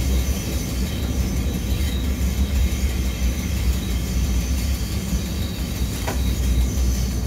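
MÁV V63 electric locomotive under way, heard from its driver's cab: a steady low rumble with a continuous high whine over it, and a brief squeak about six seconds in.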